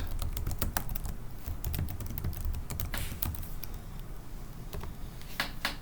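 Typing on a computer keyboard: a quick run of key clicks that thins out after about three seconds, with a couple of louder key strikes near the end.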